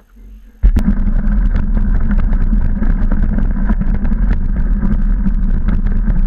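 Mountain bike descending a loose gravel trail: tyres crunching and the bike rattling with many sharp clicks over a heavy rumble of wind buffeting the microphone. It starts suddenly about half a second in and runs on at a steady loud level.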